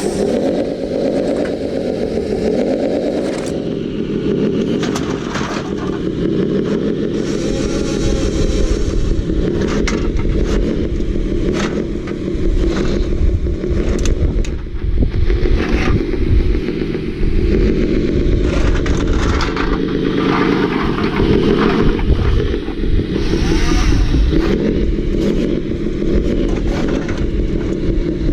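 RC excavator's motors whirring steadily, the pitch wavering as the arm and claw move under load, with scraping and clattering as the claw works the aluminium cans.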